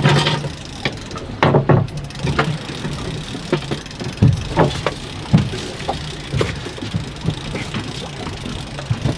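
Boat engine idling steadily, with irregular sharp knocks and thuds over it, loudest at the very start and about a second and a half in.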